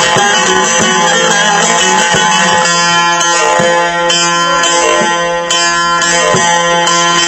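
Amplified saz (bağlama) playing an instrumental Turkish folk tune, with no singing.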